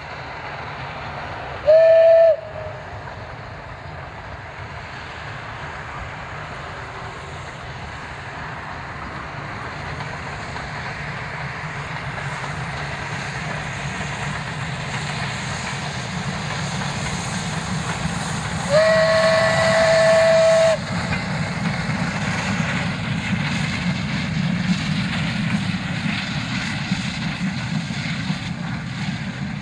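Steam whistle of ČSD steam locomotive 434.2186: one short blast, then a longer blast of about two seconds later on. Between and after them the passing steam train's running rumble grows steadily louder as it approaches.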